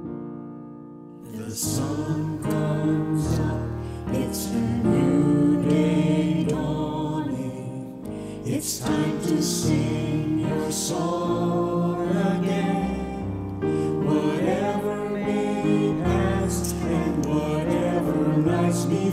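Solo piano, then about a second in, a small group of men and women start singing a worship song together over the piano accompaniment.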